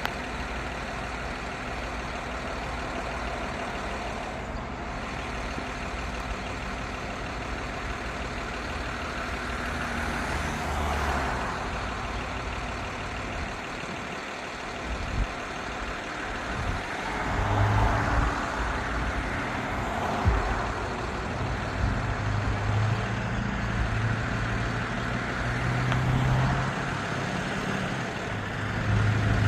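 Road traffic: vehicles passing by in slow swells, with a vehicle engine's steady low hum building from about halfway through.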